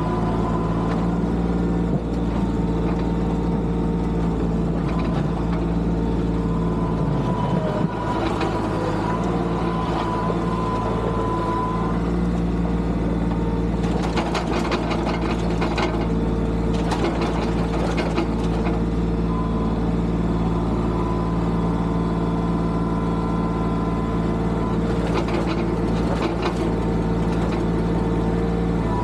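Tractor engine running steadily under work, with stretches of clattering about halfway through and again near the end.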